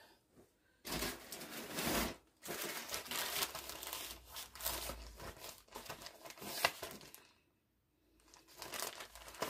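Packaging crinkling and rustling as a clothing item is handled and unwrapped. It comes in several stretches, with a sharp crackle near the end.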